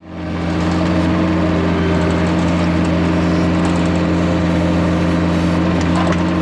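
Mini skid steer loader's engine running at a steady speed, a constant hum that fades in over the first half second.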